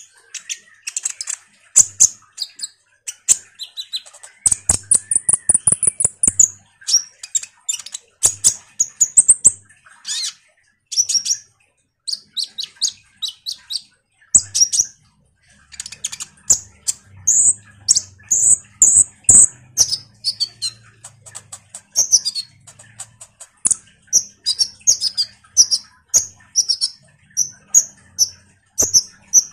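Konin (kolibri ninja) sunbird singing in a continuous chatter of very high, sharp chirps, short trills and clicking notes, with a few longer rising whistles.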